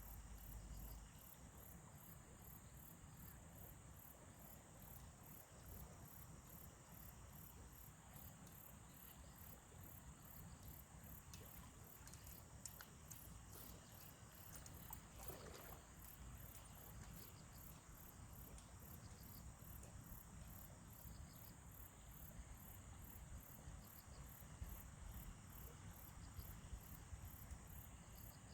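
Faint, high-pitched chirping of insects such as crickets, pulsing evenly at about one and a half to two chirps a second over a steady high drone.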